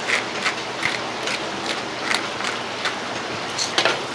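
Hand-twisted salt grinder cranking pink salt, a steady run of dry ratcheting clicks about two to three a second, ending with a louder clack near the end as the grinder is set down on the wooden table.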